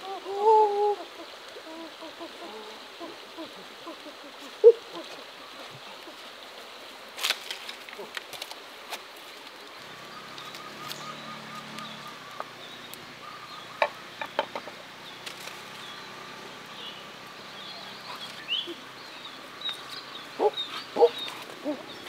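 Faint outdoor ambience with scattered sharp clicks and knocks, and short high bird chirps in the last few seconds. A person's voice is heard briefly at the very start.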